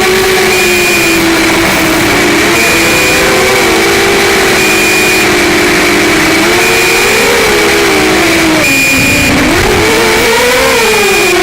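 Electric motors and propellers of a QAV200 FPV racing quadcopter whining in flight, over a constant hiss. The pitch rises and falls with the throttle and drops sharply about nine seconds in before climbing again. Short high beeps sound at regular intervals, about one and a half seconds apart.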